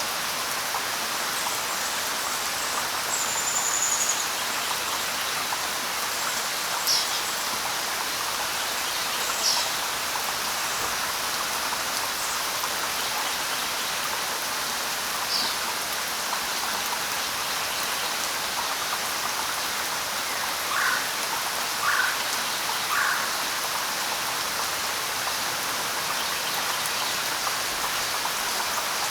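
Steady light rain falling, an even hiss, with birds chirping now and then: a few short high chirps, and three shorter, lower calls about a second apart a little after two-thirds of the way through.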